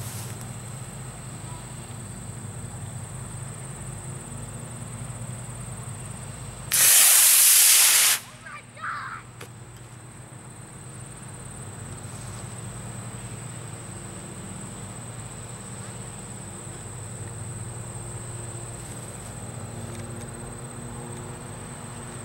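Model rocket motor firing at liftoff: a loud rushing hiss about seven seconds in, lasting just over a second and cutting off suddenly as the motor burns out.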